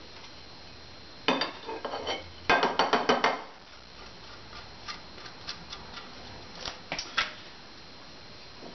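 Metal kitchen utensils clinking and scraping as soft grated cheddar is worked out of a cheese grater: two short bursts of clatter, then a few scattered single clicks.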